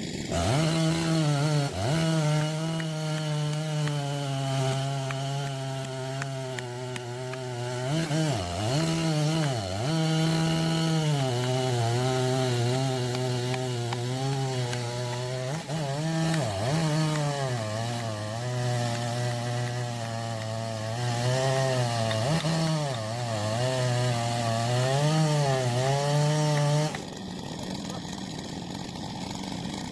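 Husqvarna 3120 XP two-stroke chainsaw cutting into a log, its engine note dipping as the chain loads in the wood and rising again as it frees up, over and over. It cuts off a few seconds before the end, leaving a quieter hiss.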